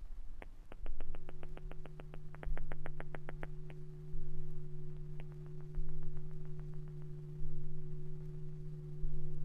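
Electronic drone music built from no-input mixer feedback samples: a steady low synthesized drone comes in about a second in over a low rumble that swells about every second and a half. Over it runs a fast train of clicks, about six a second, until nearly four seconds in, followed by a few scattered clicks.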